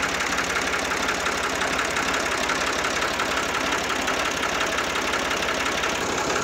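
Diesel engine of a 1981 IMT 540 tractor idling steadily, with an even, rapid clatter that does not change.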